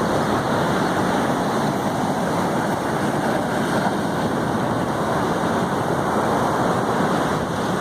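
Rough ocean surf washing in, a steady rush of water with no separate breaks standing out.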